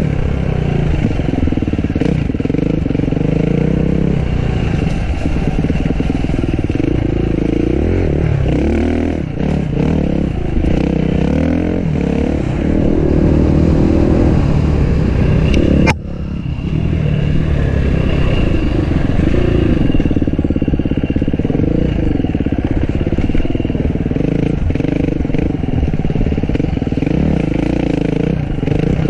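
Enduro dirt bike engine revving up and down through the gears as it is ridden hard. About halfway through there is a sharp click and the sound briefly drops before the engine picks up again.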